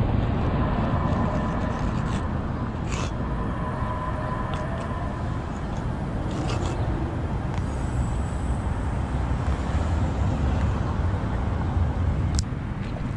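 Steady street traffic noise, a low rumble of passing vehicles, with a few faint short clicks.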